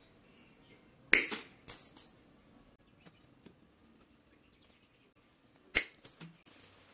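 Combination pliers snapping and cracking a steel welding rod: two clusters of sharp clicks, about a second in and again near the end.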